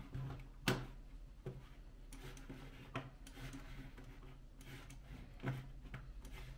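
Computer mouse clicking about four times while icons are dragged across the desktop, with soft scraping of the mouse moving between clicks over a low steady hum.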